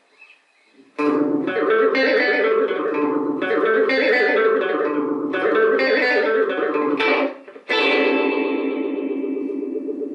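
Hollow-body electric guitar strummed through an Electra EP-401 digital delay: after a second of near silence, a run of chords, then a final chord about three-quarters of the way in that rings out and fades with a fast, even wobble.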